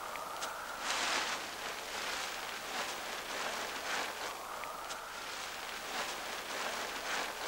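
Soft rustling and wind noise with a few louder swells, from a paraglider wing and its lines held up overhead in the breeze.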